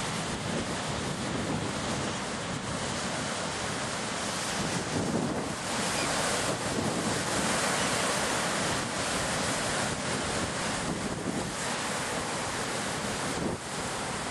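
Ocean waves washing, with wind buffeting the microphone; a steady rushing noise that swells a little louder for a few seconds in the middle.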